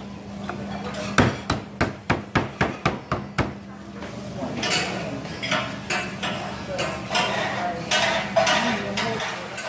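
Rapid chopping: a cleaver striking a chopping board at about four strokes a second, stopping about three and a half seconds in. After that comes a steady rush of noise with light clatter.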